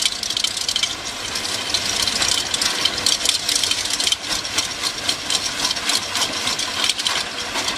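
Heavy forestry machine running under load, with rapid irregular crackling and rattling of wood being shredded.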